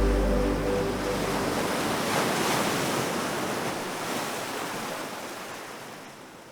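Sea waves washing, an even rushing noise that swells about two seconds in and then fades away, while the last of the closing music dies out in the first second or so.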